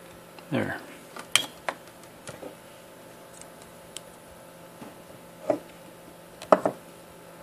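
A few sharp, separate clicks and clinks of tools and a soldered stripboard being handled on a bench, about six in all, loudest near the end.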